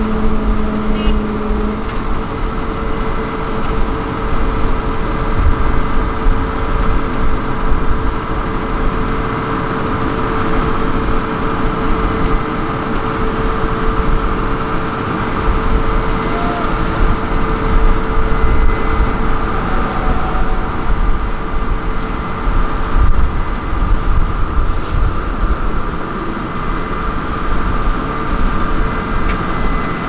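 Asphalt paver running steadily as its screed lays fresh asphalt: a dense low diesel rumble with a steady hum over it.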